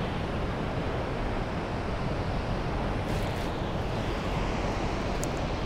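Steady rushing of a large river flowing past the dam site.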